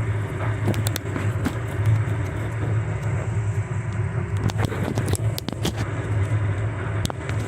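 Washing machine drum spinning: a steady low rumble with scattered clicks and knocks.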